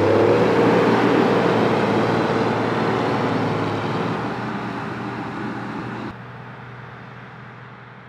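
The Big A 2800 floater's turbocharged 8.3-litre straight-six Cummins diesel comes up to speed as the machine pulls away under load, puffing black smoke. It then runs steadily at high revs, slowly fading as it drives off, and is quieter and more distant from about six seconds in.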